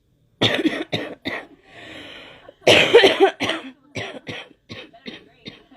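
A girl coughing in a fit: a few hard coughs, a breath drawn in, then the loudest cough followed by a run of shorter coughs that grow weaker.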